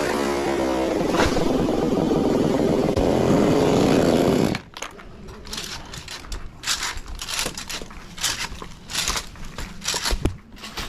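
Chainsaw running loudly, then cutting off suddenly about four and a half seconds in. After that come scattered, quieter scraping and rustling sounds.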